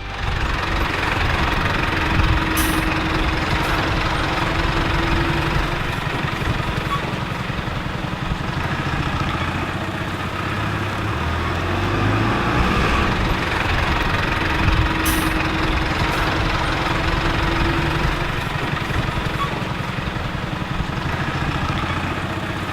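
A motor vehicle's engine running steadily at idle, with a low, even pulse.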